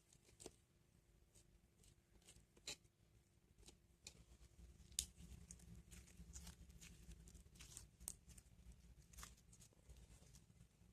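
Near silence with faint, irregular small clicks and rustles of small objects being handled, over a low steady background hum.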